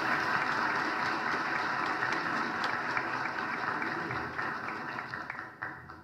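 Audience applauding with dense, steady clapping that dies away near the end.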